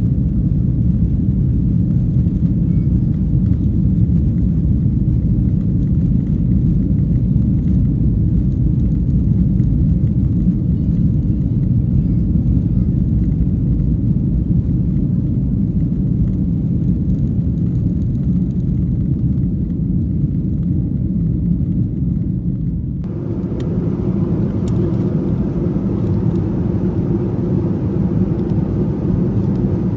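Cabin noise of a Boeing 737-900 taking off: a loud, steady low rumble from its CFM56 engines at takeoff thrust and the wheels on the runway. About 23 seconds in the sound changes suddenly to a lighter rumble with a higher engine hum as the jet climbs.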